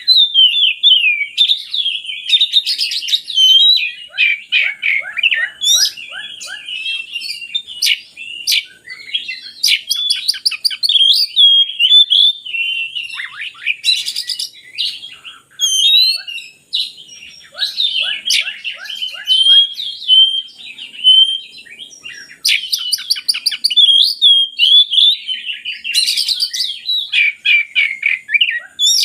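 Oriental magpie-robin (kacer) singing a long, nonstop song: a fast, varied stream of loud whistles, rapid trills and scratchy chattering notes, broken only by brief pauses. The song is rich in mimicked phrases of other birds.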